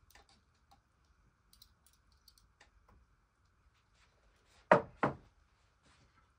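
A plate of food set down on a wooden table: two sharp knocks in quick succession near the end, after light clicks of metal tongs serving vegetables.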